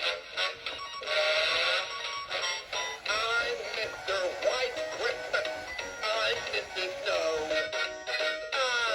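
An animated 2003 spinning-snowflake snowman figure playing its built-in song with a singing voice through its small speaker, with almost no bass.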